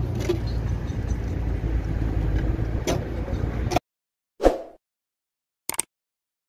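A vehicle engine running with a steady low rumble, which cuts off abruptly about four seconds in. A short whoosh and then a single mouse-click sound effect from a subscribe-button animation follow.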